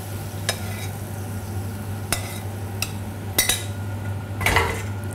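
Metal spoon and frying pan clinking a few separate times as pan sauce is spooned onto a plate, with a louder clatter of the pan near the end, over a steady low hum.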